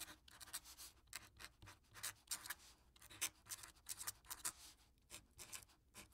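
Faint marker scratching in short, quick strokes, about three or four a second, as of writing and drawing with a felt-tip marker.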